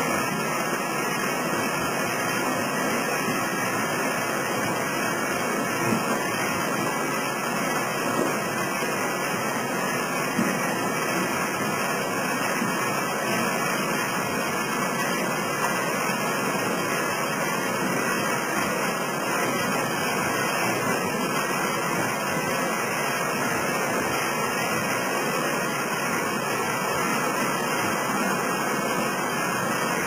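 Belt-driven frame saw and its shafting and drive belts running, powered by an old electric motor: a steady, dense mechanical clatter with a few brief louder knocks in the first half.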